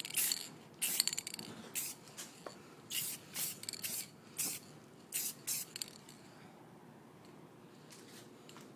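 Aerosol can of clear coat going in short hissing, rattling bursts, about a dozen in the first six seconds, then quieter.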